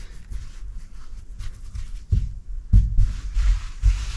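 Jute padding rustling and scraping as it is pressed and tucked into place by hand, with a few irregular dull thumps from about halfway through.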